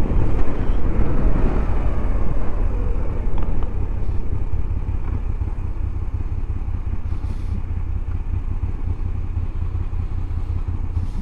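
Moto Guzzi V85TT's air-cooled transverse V-twin running on the move, with a heavy rumble of wind on the microphone. The level drops a little about four seconds in as the bike eases off.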